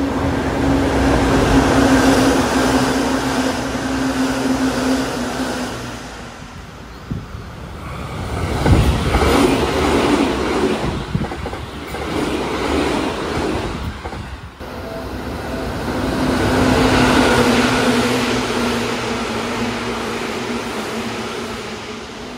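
Seibu Shinjuku Line electric commuter trains, including a 20000 series and an old 2000 series, passing through one after another at around 100 km/h. The rushing wheel-on-rail noise swells and fades with each pass, loudest about nine seconds in, and a steady hum runs through the first and last passes.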